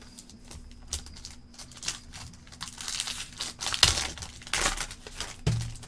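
Foil trading-card pack wrapper crinkling and tearing as a pack is opened, in irregular crackly bursts, the loudest near the middle.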